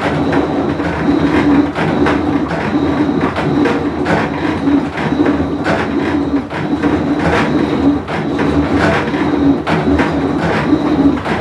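Whirlpool Cabrio top-load washing machine running loud, with a pulsing low hum and a steady rattling clatter: the sound of a bad drum bearing.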